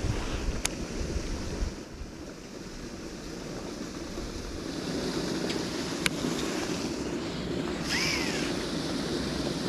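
Wind buffeting the microphone over a steady rush of water, with the gusts heaviest in the first two seconds. A few sharp clicks and a short rising-and-falling chirp come about 8 seconds in.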